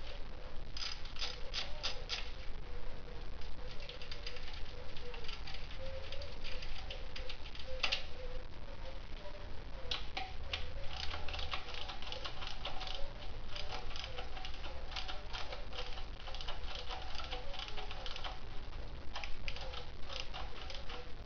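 Hand ratchet wrench clicking in quick runs with short pauses, as the muffler mounting bolts are turned.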